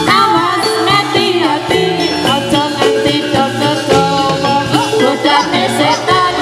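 Javanese gamelan dance music for a gedruk performance: steady drum strokes and sustained metallophone notes, with a melody line gliding in pitch over them and bells jingling in the mix.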